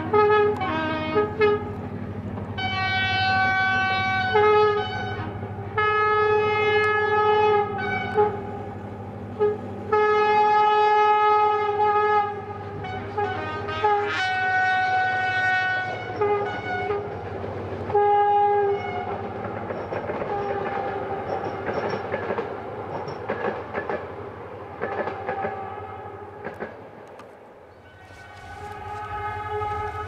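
Air horn of an LDE2100 diesel-electric locomotive sounding a long series of blasts, a few quick toots then several long held chords, for about the first 19 seconds. After that comes the running train's rumble and wheel clatter on the rails, and the horn sounds again near the end.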